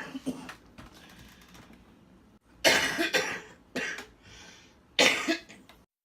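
An elderly woman coughing: a run of harsh coughs starting a little under three seconds in, and another cough about five seconds in.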